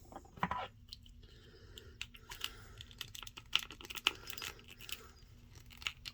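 Small hard plastic action figure parts being handled: a run of irregular light clicks and taps as pieces are fitted and knocked together, thickest in the middle.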